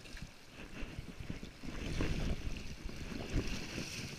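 Stream water flowing and splashing, with wind buffeting the microphone and low handling rumble; the splashing grows stronger near the end.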